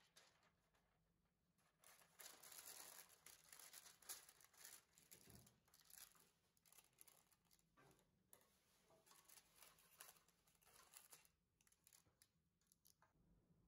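Parchment paper rustling and crinkling as it is pressed and smoothed into a metal springform cake pan, in uneven bursts that start about two seconds in and die down near the end.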